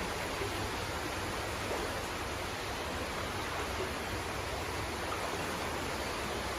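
Steady rushing of flowing creek water, an even, unchanging noise.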